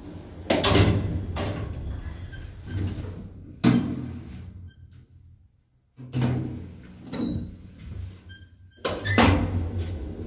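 1979 Končar traction lift starting, travelling and stopping: a series of loud clunks and thuds from its machinery and doors, over a low running hum.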